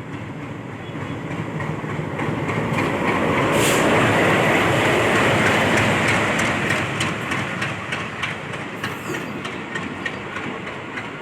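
Indian Railways train passing by, its rushing noise swelling to a peak about midway and then easing off, with the rapid clickety-clack of wheels over rail joints through the second half.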